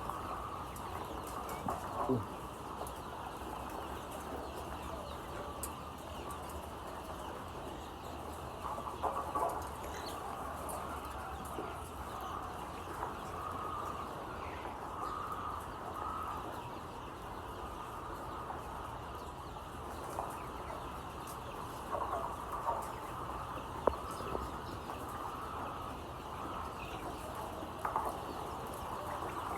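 A flock of chickens in a poultry house giving a steady mass of clucking and chirping calls, with a few louder outbursts now and then.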